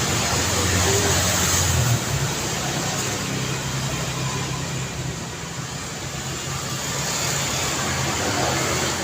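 Daytime city street traffic: a steady wash of car engines and tyre noise. One vehicle passes close in the first two seconds and its hum drops away suddenly, and the traffic swells again near the end.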